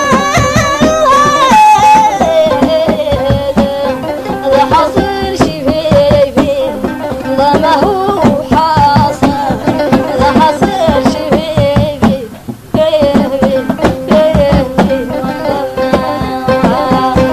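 Mauritanian traditional song: a solo voice singing long, ornamented, wavering lines over a steady held note and a fast hand-drum beat, with a brief drop in the music about twelve seconds in.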